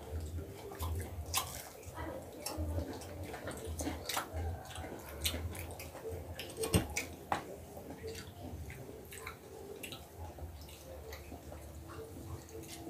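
People eating by hand: chewing, with scattered small clicks and taps of fingers and food against plates.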